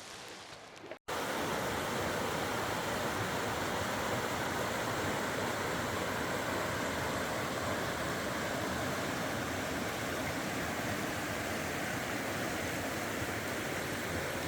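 Steady rush of flowing water from the river or a waterfall, starting abruptly about a second in and holding an even level.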